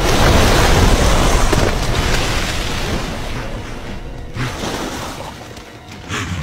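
A crocodile lunging at drinking wildebeest: a sudden loud splash and crash of water, then churning, thrashing water that slowly dies down.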